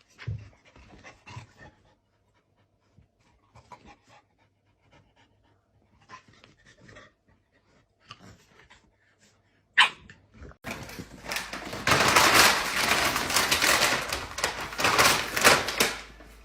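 A dog panting rapidly and loudly through the last five seconds, after faint scattered small sounds and a single sharp click.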